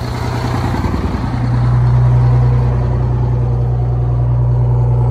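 Diesel engine of a 1989 Crown Super Coach bus running at the rear engine compartment, left running to build air pressure. About a second and a half in it gets louder and its low note steps up, then it runs steadily.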